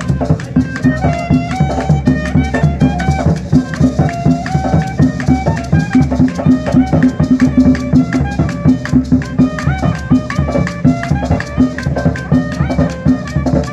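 Live street music: a wind instrument plays a stepping melody over a steady beat on a large drum, with a fast rattle keeping time.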